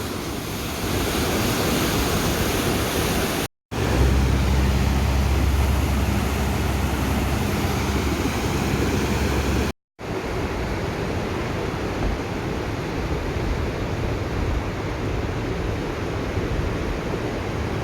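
Floodwater of a swollen river rushing, a steady loud roar of water heard across three short clips split by two brief silent cuts. A low steady hum sits under the water in the middle clip.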